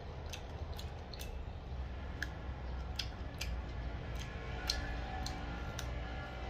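Close-miked eating sounds: about ten small, sharp, irregular clicks and smacks of the mouth while chewing, over a low steady room hum.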